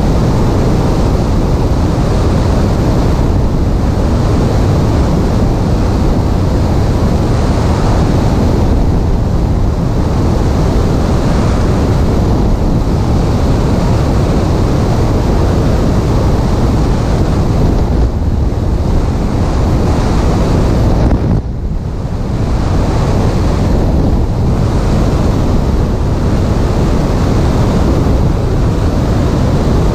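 Airflow blasting over a camera microphone mounted on a Piper Cherokee's stabilator in flight: a loud, steady wind roar, dipping briefly about two-thirds of the way through.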